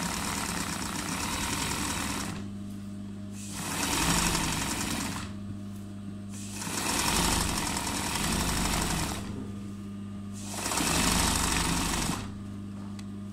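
Hand-guided embroidery sewing machine stitching in four short runs of one and a half to three seconds, stopping for about a second between them, while its motor hums steadily through the pauses.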